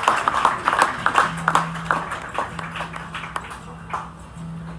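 Concert audience applause dying away, thinning to scattered single claps. A low steady hum sets in about a second in.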